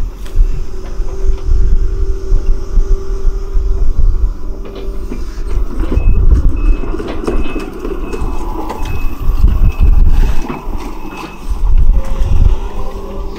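Sumitomo hydraulic excavator's diesel engine running under load while it digs and lifts wet paddy mud. A short high beep repeats about twice a second through the middle stretch.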